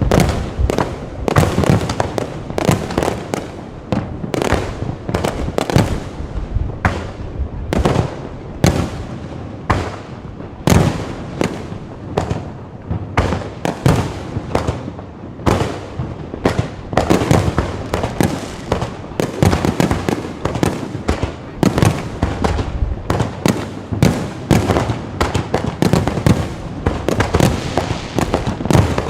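Low-altitude fireworks going off in a rapid, continuous barrage of sharp bangs, several a second.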